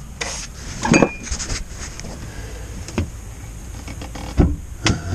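Wooden cockpit locker lid on freshly screwed hinges being lowered shut: a few clicks and light knocks of wood and hardware, with one dull thump near the end as the lid settles onto its frame.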